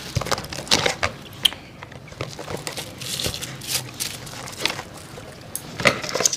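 Scattered clicks and knocks of tableware being handled, with a louder clack near the end as metal serving tongs are picked up.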